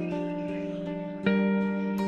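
Background music on a plucked guitar, single notes ringing out, with a louder chord struck about a second and a quarter in.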